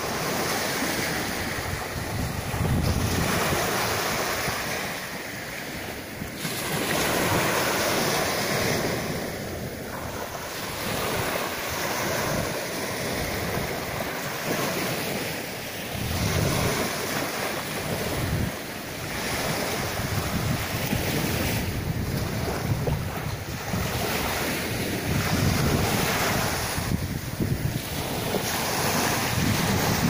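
Small sea waves breaking and washing up a sandy beach, the surf swelling and fading every few seconds, with wind buffeting the microphone.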